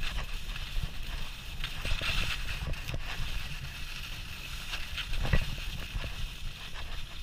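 Skis sliding and scraping over groomed snow, a steady hiss, with wind rumbling on the microphone. Light clicks throughout and a sharper knock about five seconds in.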